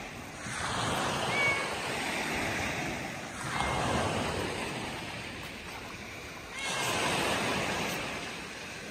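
Sea waves breaking and washing up a pebble beach, three surges about three seconds apart, each swelling quickly and then fading.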